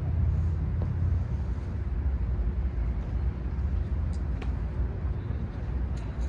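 Steady low outdoor rumble, heaviest in the first second, with a few faint clicks over it.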